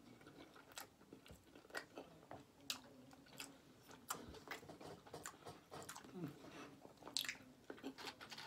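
A person chewing a mouthful of burrito with the lips closed: quiet, irregular wet clicks and smacks, several a second.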